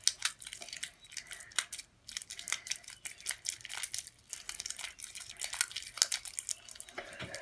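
Freshly made clear glue-and-borax slime being stretched and squished by hand, giving a dense run of irregular sticky clicks and crackling pops.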